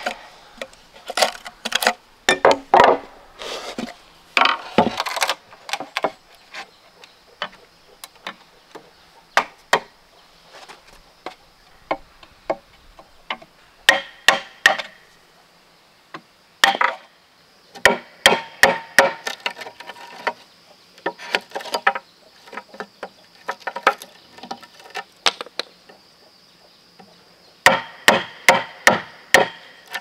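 A metal blade chopping and cutting into the wall of a thick bamboo tube to open a hole: sharp woody knocks in quick runs of several strikes, with short pauses between runs.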